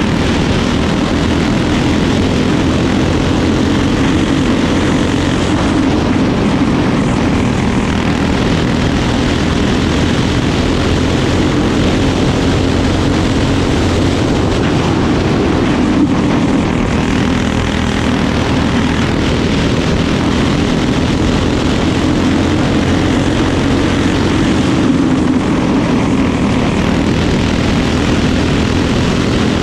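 Crate-class racing kart engine running at racing speed, a loud, steady drone recorded onboard the kart.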